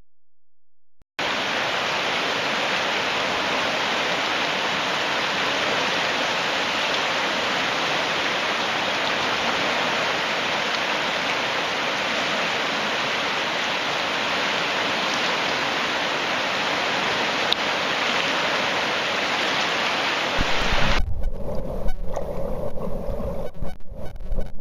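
Fast river rapids, white water rushing steadily, starting about a second in. Near the end the rushing gives way to a muffled, low rumble with irregular thumps, as heard with the microphone underwater.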